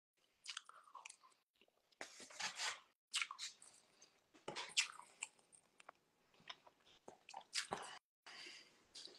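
A person chewing a mouthful of food close to the microphone: faint, irregular wet mouth sounds and small crunches in short bursts.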